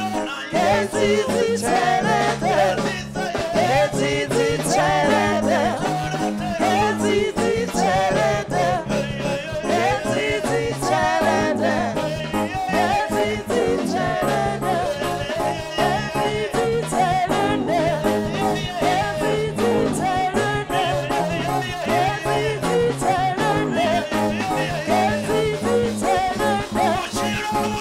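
Upbeat gospel music: voices singing over a steady beat and a repeating bass line.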